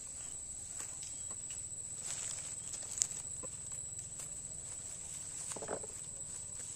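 Light rustling and knocks of dry sugarcane leaves and cut cane stalks being picked up and stepped on, over a steady high insect drone. There is a sharp click about three seconds in and a short call near the end.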